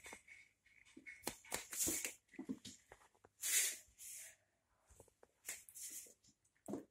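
A cat playing with a bird feather on a laminate floor: irregular rustles, swishes and light scuffs of paws and feather, with a few soft clicks.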